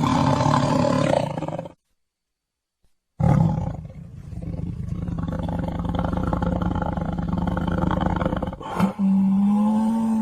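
Tiger roaring: one roar cuts off about two seconds in, and after a short silence a long, rough roar follows. Near the end it turns into a steadier, held tone at one clear pitch.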